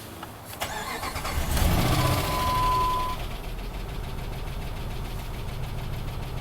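A 2005 Dodge Ram 2500's 5.7 Hemi V8 cranking and starting, flaring up for a second or so, then settling into a steady idle. A steady electronic beep sounds during the flare. The engine has a dead cylinder and a ticking, which the technician thinks is a worn-out cam.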